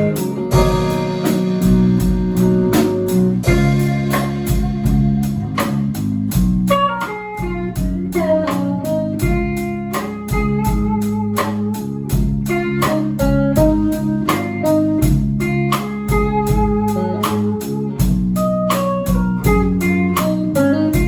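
Instrumental break in a song: a guitar plays a melodic lead line over a steady bass and a regular beat.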